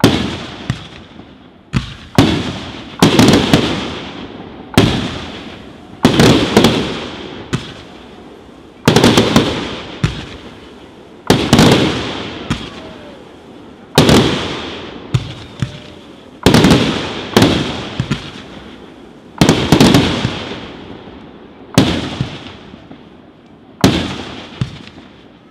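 Aerial firework shells bursting in steady succession: sharp loud bangs about once a second, some in close pairs, each followed by a rumbling echo that dies away over a second or so.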